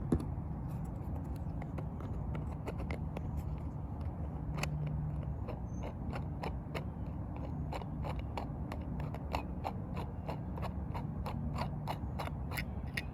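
Small irregular plastic clicks and scrapes of a 3D-printed microSD card case being handled, with a steady low hum underneath.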